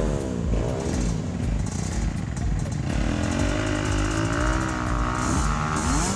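Motorcycle engine revving on an off-road trail, its pitch rising and falling again and again as the throttle is blipped.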